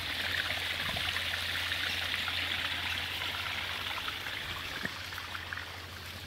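Water from a small waterfall splashing and trickling steadily, growing a little fainter near the end.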